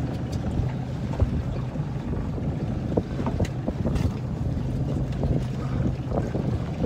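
Small fishing boat's engine running steadily under wind buffeting the microphone, with a few light knocks.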